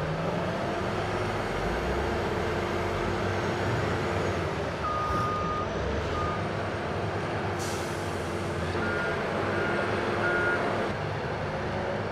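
Heavy diesel log-handling machinery running as a log loader lifts a load of logs off a log truck. Electronic warning beeps sound over it: one long beep about five seconds in and three short beeps near the end. There is a brief hiss just before eight seconds in.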